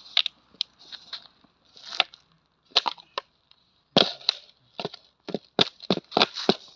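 Clear plastic jar being handled: its lid is worked off and the jar is put down on sandy ground, giving a series of sharp plastic clicks and knocks. There is a hard knock about four seconds in and a quick run of them near the end.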